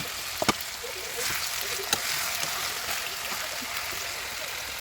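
Food sizzling as it fries in a pan and is stirred. A few sharp knocks of a utensil against the pan come through: two close together about half a second in, and one near two seconds.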